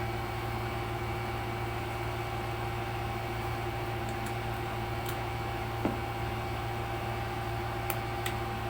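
A steady electrical hum with background hiss, with a soft tap about six seconds in and two faint short clicks near the end.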